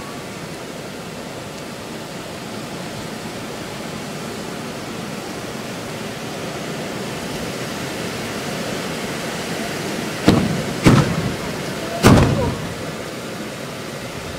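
Hand-held tezutsu bamboo-tube fireworks spraying with a steady rushing roar that slowly grows louder. Ten seconds in come three sharp bangs, the bursts that end the tubes.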